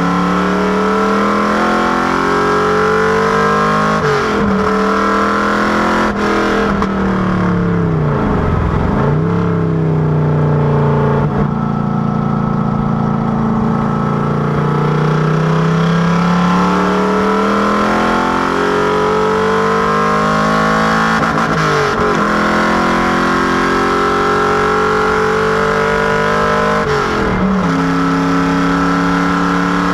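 FFR Cobra Daytona Coupé's V8 engine running hard on a circuit. Its pitch climbs and falls over several seconds at a time and breaks sharply about five times at the gear changes.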